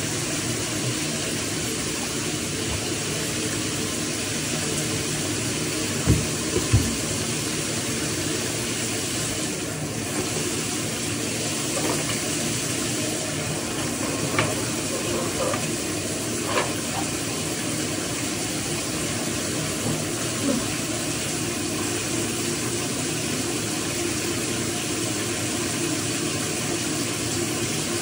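Shower water running steadily with an even hiss of spray. A few short knocks sound through it, the loudest two close together about six seconds in.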